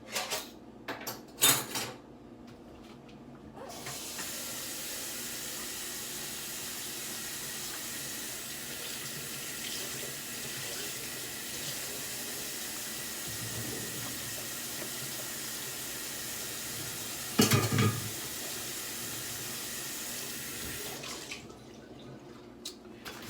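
Kitchen tap running steadily for about seventeen seconds, then shut off. A few knocks come just before it starts, and one louder clunk comes about two-thirds of the way through.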